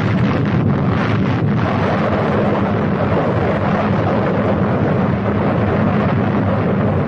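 Nuclear bomb test blast: a loud, steady rumble that starts suddenly out of silence, with crackling in the first second or so.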